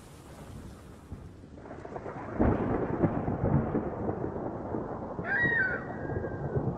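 Hot oil with mustard seeds in an aluminium kadhai sizzles and splutters. It jumps to a loud, dense crackle about two and a half seconds in, as curry leaves hit the oil. Near the end comes a short falling metallic squeal of a steel spoon scraping a steel plate.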